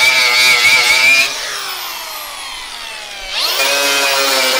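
Milwaukee cordless angle grinder with a wire cup brush running against a metal roof seam, scrubbing off old tar and caulking. About a second in the motor is let off and winds down with a falling whine, then spins back up with a rising whine a little past three seconds in and runs on.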